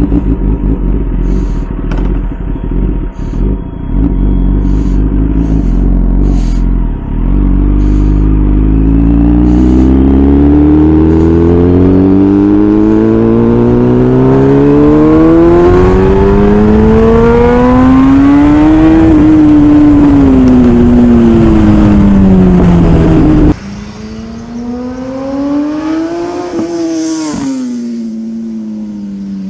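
Kawasaki ZX-10R inline-four engine through an SC-Project S1 exhaust, running low and uneven at first. Its pitch then climbs steadily for about ten seconds as it accelerates, and falls as it slows. About three-quarters of the way through the sound drops sharply in level, then rises and falls in pitch once more.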